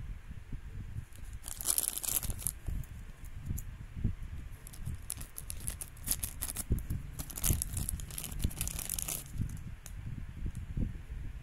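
Thin LDPE plastic blind-bag pouch being crinkled and torn open by hand, in crackling bursts about a second and a half in and again from about five to nine seconds, over soft handling knocks.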